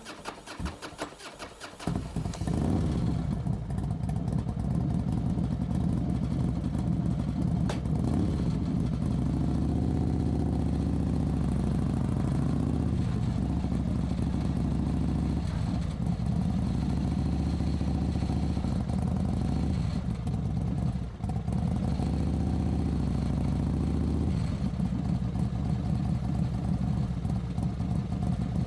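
Motorcycle engine driven at low speed: a quieter rapid ticking for the first two seconds, then the engine runs loud and low-pitched, its pitch rising and falling, with a brief dip about 21 seconds in.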